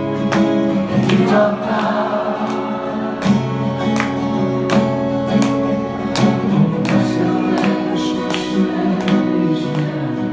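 Live band music: sustained chords over a steady drum beat.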